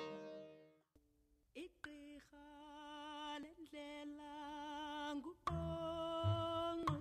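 Background music: a plucked-string piece fades out, and after a short gap a voice sings long held notes with a wavering vibrato. A low drum beat comes in near the end.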